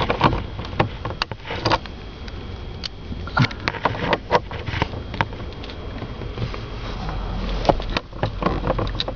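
Irregular clicks and knocks of hand tools working at bolts on a Ford Explorer's steering column shifter, over a low steady hum.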